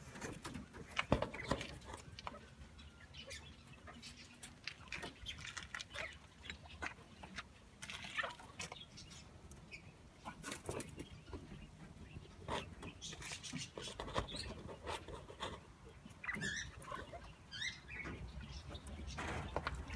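Quail moving about on a wire-mesh cage floor: scattered light taps and scratches, with a few short high bird calls about three-quarters of the way through.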